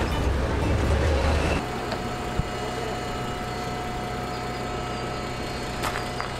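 A vehicle running. A loud low rumble for about the first second and a half changes suddenly to a steadier, quieter hum with a faint steady whine. There is one short click about two and a half seconds in.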